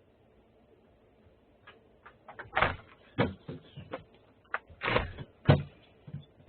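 A run of about ten irregular knocks and clatters that begins about a second and a half in, two of them louder than the rest, with a thin sound that has no top end.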